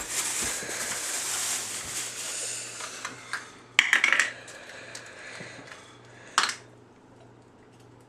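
Light clinks and knocks of small hard objects being handled, after a hiss of about two seconds. The loudest is a cluster of clinks about four seconds in, then a single sharp clink a little past six seconds.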